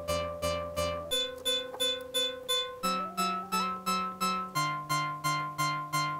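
Moog Subharmonicon analog synthesizer playing a sequenced pattern of short plucky notes, about three a second. The pitches step to new intervals every second or two as the sequencer knobs are turned, and one tone glides upward about three seconds in. The sequencers also modulate the two oscillators' pulse widths.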